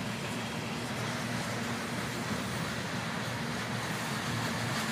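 Freight train of covered hopper cars rolling past over a bridge, a steady rumble of wheels on rail.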